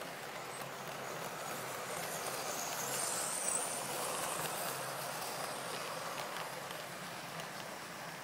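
OO gauge model train running along the track, its motor and wheels making a steady rumbling whirr that grows louder as it passes close about three seconds in, then fades as it moves away.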